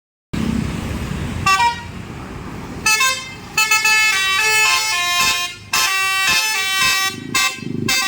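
A bus's Basuri 'telolet' multi-tone horn, blown through roof-mounted trumpets, plays a quick tune of stepped notes over a low rumble. After a brief burst of notes about a second and a half in, the tune runs on with short breaks from about three seconds in.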